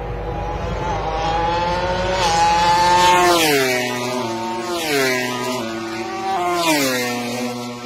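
MotoGP bikes' 1000 cc four-stroke engines running flat out, the engine note climbing for the first few seconds; then the pitch drops steeply three times, about a second and a half apart, as bikes pass at speed.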